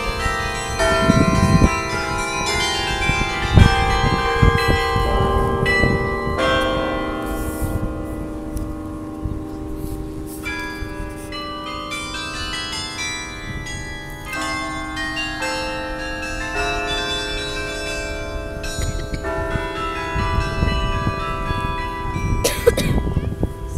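Carillon bells of the Millennium Carillon playing a tune: many struck bronze bell notes ringing out and overlapping as they die away slowly. A few low rumbles come through near the start and near the end.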